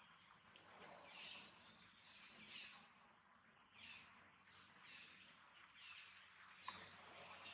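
Faint outdoor ambience: a steady high hiss with a high chirping call repeating roughly every second and a bit, and a single click near the end.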